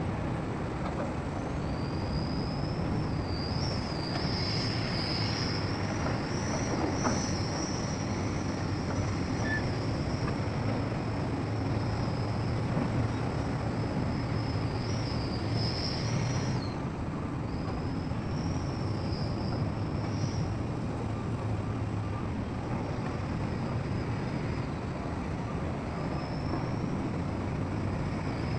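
Heavy earthmoving machinery running steadily with a low engine hum. A high-pitched squeal wavers over it for much of the first two-thirds, then returns briefly near the end.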